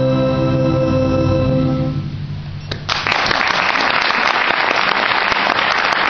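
An orchestra holds a final sustained chord that fades out about two seconds in. After a short gap, audience applause starts about three seconds in and keeps up steadily.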